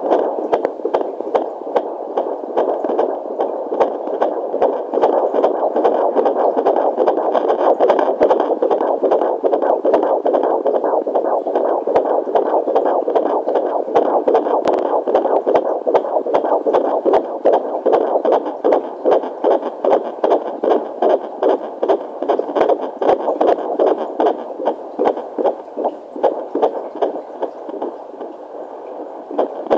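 A 17-week fetus's heartbeat played through a Jumper handheld fetal doppler's loudspeaker: fast, even pulsing over a steady hiss, the pulses standing out more clearly near the end.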